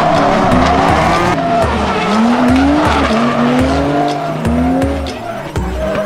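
Drift cars sliding in tandem: engines revving up and down with tyres screeching, over background music with a steady thumping beat.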